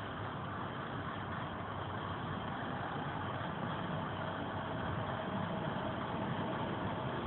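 Diesel railcar's engine running steadily, an even drone that grows slightly louder, with a faint steady tone coming in about five seconds in.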